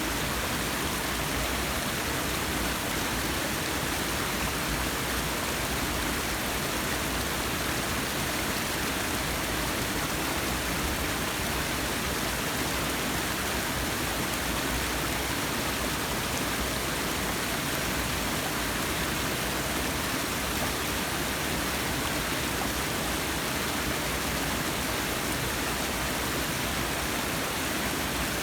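Forest waterfall: a steady, even rush of falling water with no breaks or changes.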